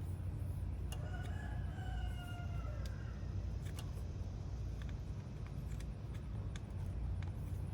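A rooster crowing once, a call of about two seconds starting about a second in and sagging slightly in pitch at the end, over a steady low rumble with a few sharp clicks.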